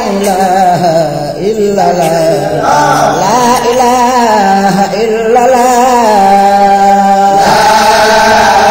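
Sufi zikr chanting: a male voice sings long, wavering, ornamented lines over a lower sustained note that holds steady and shifts in steps.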